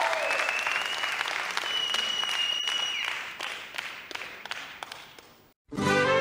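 Crowd applause that fades away over several seconds. Just before the end, after a brief silence, a mariachi trumpet starts playing.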